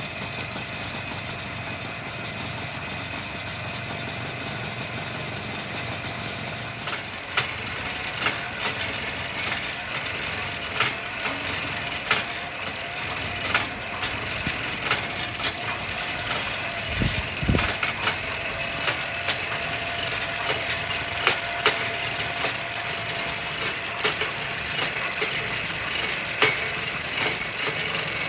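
A motor-driven machine running with a steady hum; about seven seconds in, a louder, hissing, rattling sound with many sharp clicks starts up and grows louder toward the end.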